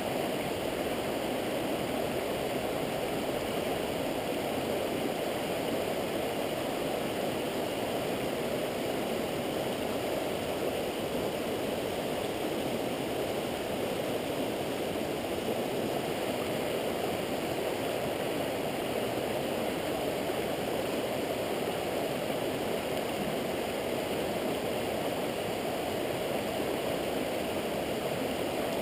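Steady rush of a fast mountain stream running over rocks and riffles, an even noise with no breaks.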